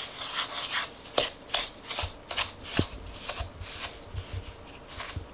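Wooden spoon scraping and pressing lumps of butter into granulated sugar against a ceramic mixing bowl: repeated gritty strokes with a few sharp knocks of the spoon on the bowl, as the butter and sugar are creamed together by hand.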